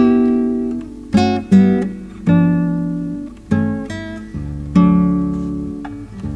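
Solo nylon-string classical guitar, fingerpicked: about six single notes and chords, one roughly every second, each plucked sharply and left to ring and fade, over a low bass note.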